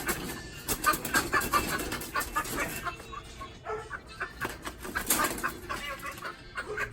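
Chickens clucking: many short calls close together, with sharp clicks and knocks among them.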